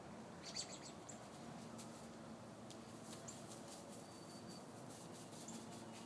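Small birds chirping faintly: a quick cluster of short, high chirps about half a second in, then a few scattered single chirps.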